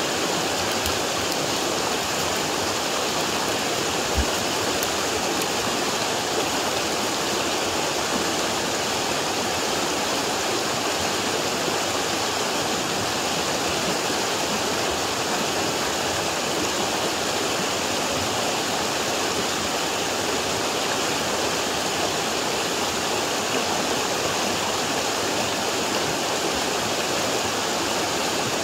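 River water rushing steadily, a constant even noise of flowing water.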